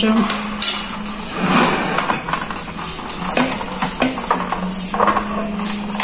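Metal ladle and glass jars knocking and clinking against a stainless steel pot, with a short scrape about one and a half seconds in, as jam is ladled out for jarring. A steady low hum runs underneath.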